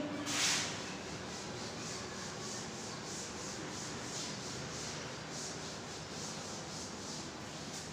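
Chalkboard duster being rubbed across a blackboard to erase chalk writing, a steady scrubbing hiss in quick, even back-and-forth strokes.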